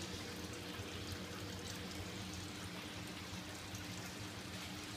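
Water trickling and splashing steadily as it flows through an aquaponic system's tanks and plumbing, over a steady low hum.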